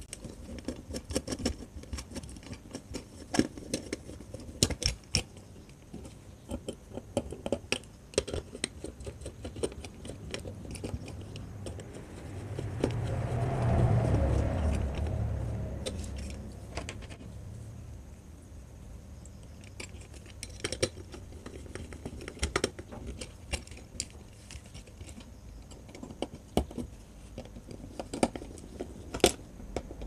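Scattered small clicks and scrapes of a screwdriver and wires against the plastic switch board's screw terminals as the board is wired up. About halfway through, a low rumble swells and fades over a few seconds.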